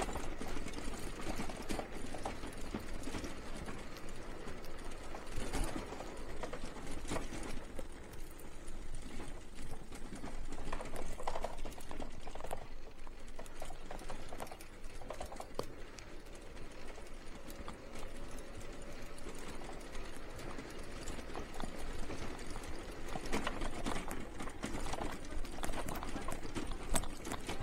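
Bicycle rolling over cobblestones: a dense, continuous rattle of the tyres and frame jolting over the stones, with a louder stretch about halfway through and again near the end.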